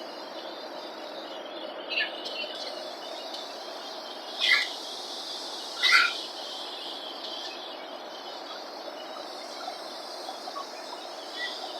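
Steady airliner cabin noise in flight, with three short high squeals about two, four and a half and six seconds in, the last two the loudest.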